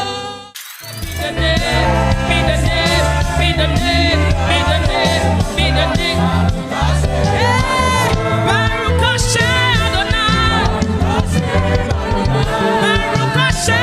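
Gospel worship song: singing voices over a heavy bass line. The music cuts out for a moment about half a second in, then comes back at full level.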